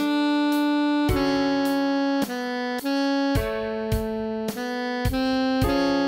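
Computer-generated alto saxophone tone playing a slow melody of held notes, about nine in all, each changing cleanly to the next, over lower sustained chord notes.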